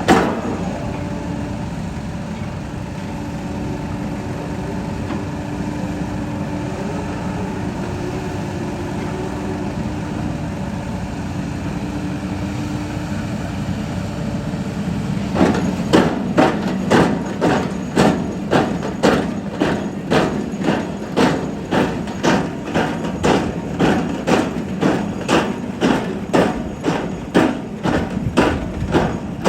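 An engine running steadily with a low hum. About halfway in, sharp regular knocks start at about two a second and keep going over the hum.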